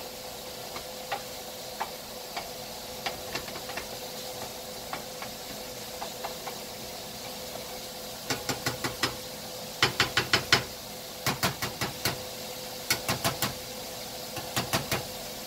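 Cooking utensil tapping and scraping against a frying pan as ground beef is stirred and broken up to brown: scattered clicks at first, then quick runs of louder knocks from about eight seconds in.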